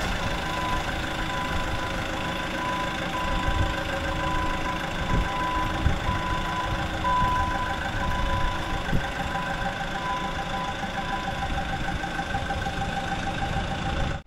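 Taylor GT50 forklift engine running steadily as the forklift drives with a load on its forks, with a high-pitched beep sounding on and off until near the end.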